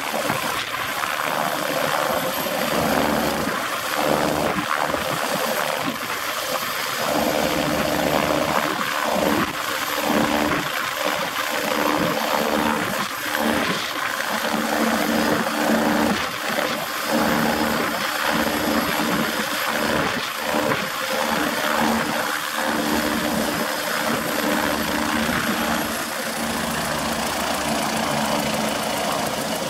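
An MBB Bo 105 helicopter's twin turboshaft engines and main rotor running as it hovers low over a helipad and settles onto it. A steady high-pitched turbine whine sits over the rotor noise.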